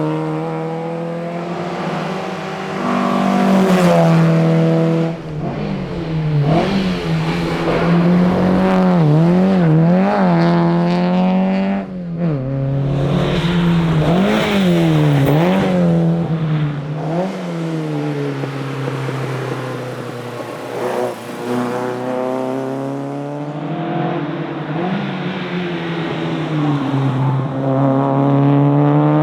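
Alfa Romeo GTV 2000's twin-cam four-cylinder engine driven hard, its pitch climbing and dropping again and again through gear changes. The note swings quickly up and down several times in the middle, then climbs more smoothly and steadily near the end.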